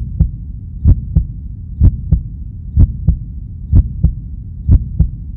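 Heartbeat sound effect: double lub-dub thumps, six pairs about one a second, over a low steady rumble.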